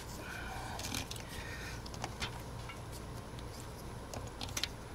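Scattered light clicks and taps of hands working with small hardware, over a steady low hum.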